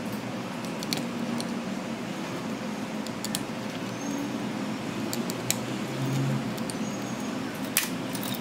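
Sharp, small clicks of a precision screwdriver tip working the tiny screws and metal shields inside an opened iPhone 14 Pro Max, a handful of them over a steady hiss, the loudest near the end.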